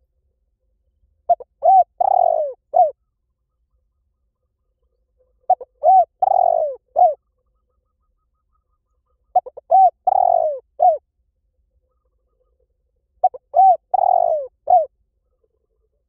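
Spotted dove cooing: four phrases about four seconds apart, each a few short notes, then a longer, louder coo and a short closing note.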